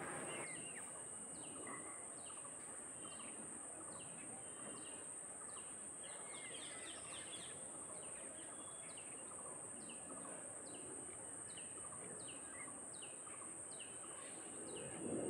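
Faint background sound of a bird chirping over and over, short falling chirps coming about one to two times a second, over a steady high-pitched hiss.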